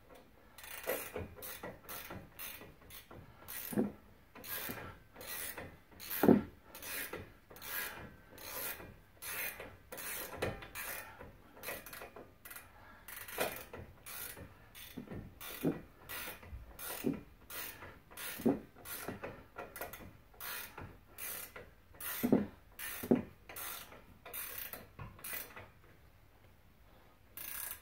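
Ratcheting wrench clicking in short, even strokes, about two a second, as it turns the nut on a front strut's shaft. The clicking stops shortly before the end.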